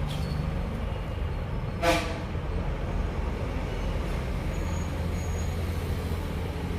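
Steady low background rumble, with one short pitched toot about two seconds in.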